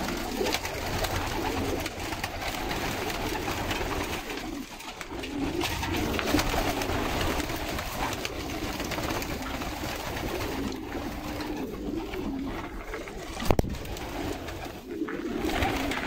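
Many domestic pigeons cooing together, a continuous overlapping chorus of low, wavering coos. Late on there is a single sharp knock.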